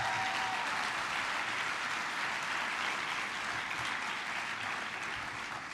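Audience applauding in a large hall, a steady clapping that fades toward the end.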